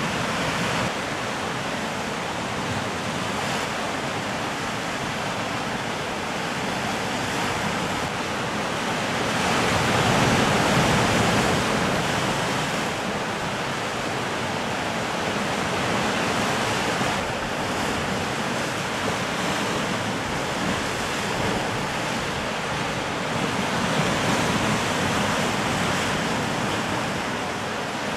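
Sea surf breaking and washing over rocks, a steady rushing that swells and eases. It is loudest about ten seconds in.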